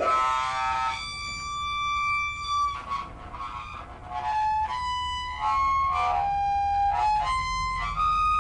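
Live experimental noise music: a string of held pitched notes, each lasting from about half a second to two seconds before stepping to a new pitch, with a low rumble coming up near the end.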